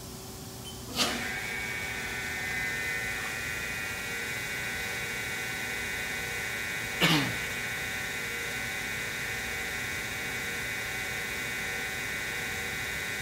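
Haas SL-40L Big Bore CNC lathe spindle starting with a short burst about a second in, then running with a steady high-pitched whine over a low hum. A second brief sudden sound, falling in pitch, comes about seven seconds in.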